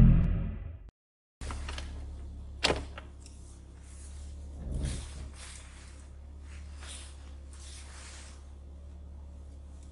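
Intro music fading out, a brief dead gap, then the low steady hum of a Porsche Panamera heard from inside its cabin while reversing, with a sharp click a little under three seconds in and a soft thump about halfway.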